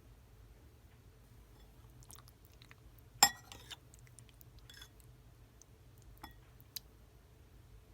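Eating sounds: a few sharp crunching clicks of biting and chewing, the loudest about three seconds in, over a low steady hum.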